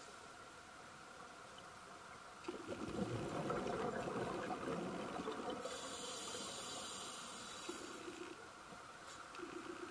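Scuba diver breathing through a regulator underwater: after a quieter start, a gurgle of exhaled bubbles begins a few seconds in, followed by a hissing breath through the regulator that fades near the end.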